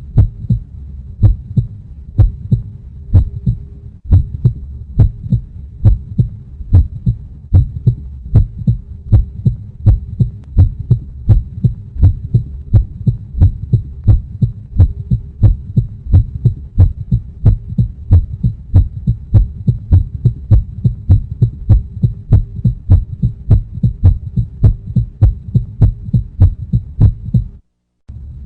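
Heartbeat sound effect: a steady rhythm of short, low thumps over a continuous low hum. It drops out for a moment near the end, then starts again.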